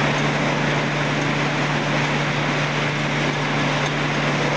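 Electric motor-driven machinery running steadily: a constant hum under an even mechanical noise.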